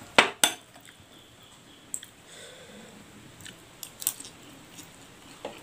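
Spoon clinking sharply against a ceramic plate twice near the start, then a man eating fried instant noodles and egg from the spoon, chewing with a few small clicks.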